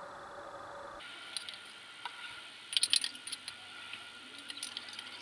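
Metal spoon clinking and scraping against a small cup and a stainless steel pan as chili sauce is scraped in: a run of irregular sharp taps, loudest in a quick cluster about three seconds in.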